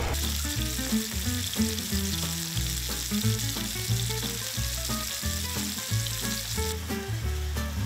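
Salmon steaks sizzling in oil in a small frying pan, a steady hiss that eases slightly near the end, with background music playing underneath.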